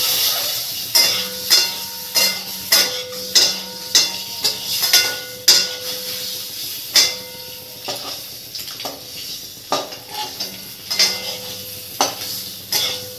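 Metal tongs scraping and clinking against an aluminium kadhai while turning peeled boiled eggs frying in hot oil with turmeric, over a steady sizzle. The clinks come about twice a second at first, then more sparsely, and the pan keeps ringing faintly between them.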